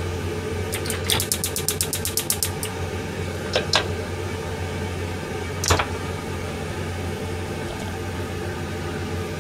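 Gas stove's spark igniter ticking rapidly, about ten clicks a second for roughly two seconds, as the burner under an empty frying pan is lit, followed by two single clicks a few seconds apart. A steady low hum runs underneath.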